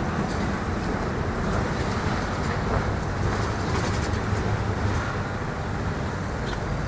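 Road traffic crossing a level crossing close by: a minibus and then vans driving past over the rails, with steady engine and tyre noise.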